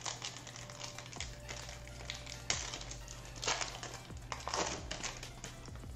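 Trading card pack wrapper being torn open and crinkled by hand, in several short rustles. The loudest come about two and a half, three and a half and four and a half seconds in.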